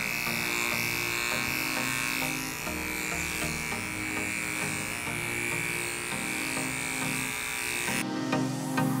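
Artero Premium professional dog-grooming clipper running steadily with a high hum as it clips a dog's curly coat, cutting off abruptly near the end.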